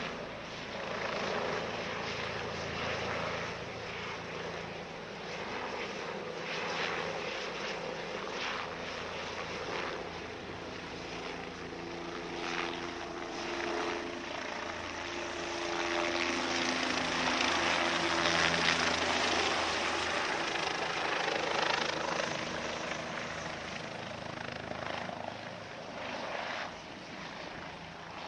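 Turbine helicopter hovering and flying low with a long line slung beneath it: steady rotor and engine noise that grows louder about two-thirds of the way through and eases off near the end.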